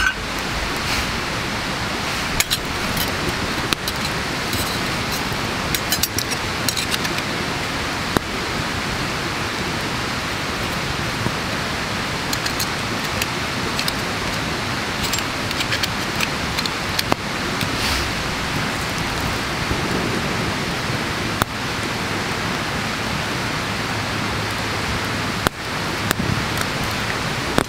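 Campfire burning with a steady hiss and scattered crackles and pops, along with a few light metallic clinks from a folding steel stove stand being unfolded and set in place.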